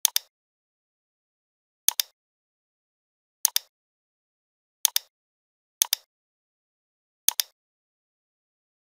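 Computer mouse button clicks, six in all, each a quick double tick of press and release, spaced irregularly about a second or so apart, with dead silence between them.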